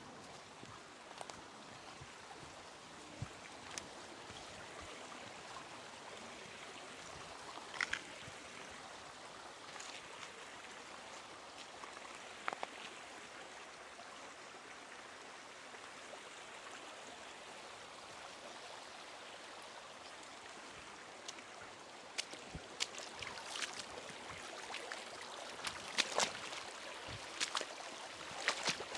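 Creek water bubbling steadily, with scattered sharp clicks and knocks that come more often in the last several seconds.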